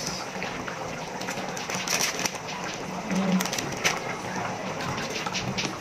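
A pot of menudo, a tomato-based pork stew, boiling hard, with a steady hiss and many small irregular pops from the bubbling sauce.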